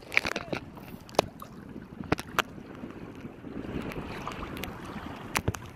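Choppy bay water lapping and slapping against a kayak's hull, with wind on the microphone and several sharp knocks scattered through.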